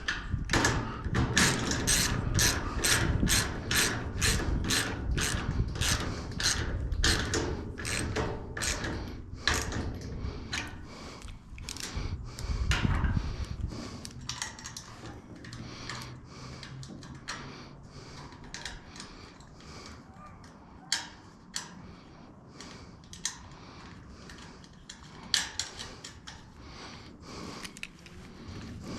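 Hand ratchet socket wrench clicking as nuts are run onto bolts, a quick even run of clicks about three a second for roughly the first half, then slower and quieter strokes.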